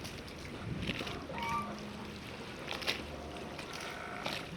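Harbour ambience: water sounds over a low boat-engine hum that comes and goes, with a few sharp knocks and a brief squeak.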